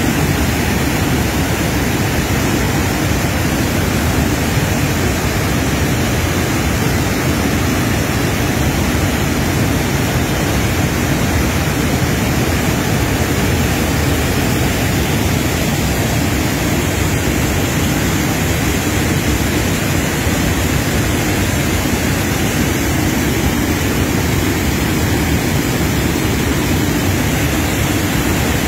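A wide river waterfall pouring over a rock ledge into fast, churning water: a loud, steady rush of falling water that holds unchanged throughout.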